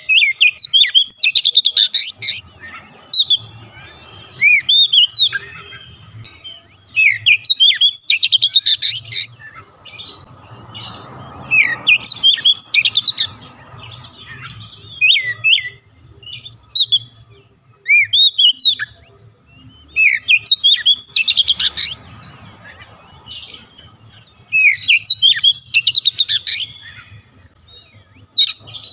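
Male oriental magpie-robin singing in full voice: a varied run of sliding whistled notes, broken every few seconds by quick stretches of rapid, rattling chatter.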